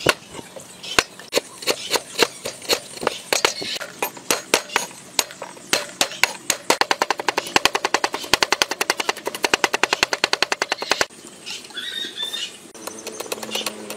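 Cleaver blade striking a wooden chopping board as garlic is minced: separate, uneven chops at first, then a fast, even run of chops that stops about eleven seconds in.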